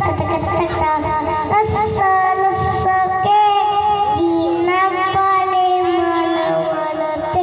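A young boy singing into a microphone through a PA system, holding long notes that waver in pitch.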